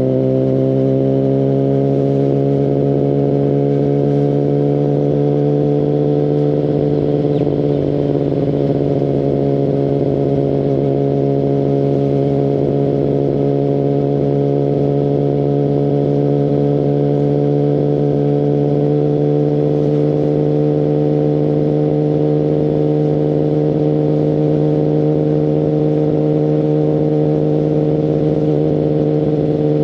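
Kawasaki Ninja ZX-10RR inline-four engine through a full Akrapovic exhaust, running under way at fairly steady revs. The pitch rises a little over the first several seconds as it speeds up gently, then holds level.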